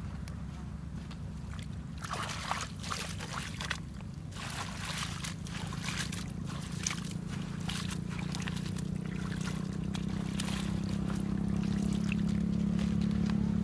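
Hands squelching and sloshing through soft, wet pond mud while groping for fish, with a run of irregular wet splats starting about two seconds in. A steady low hum runs underneath and grows louder near the end.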